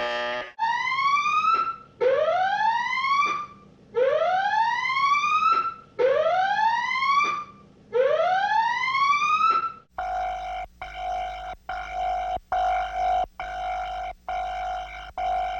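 Electronic whooping alarm tone: five rising sweeps about two seconds apart, each climbing and levelling off before it stops. About two-thirds of the way through it changes to a harsh buzzing tone that pulses on and off about one and a half times a second.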